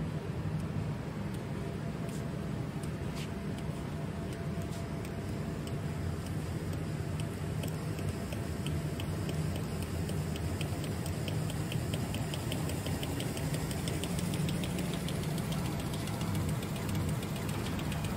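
Lemu Group Mida LI220 RFID label inspection machine running with a steady low hum. From about seven seconds in, a regular light ticking, several ticks a second, joins the hum.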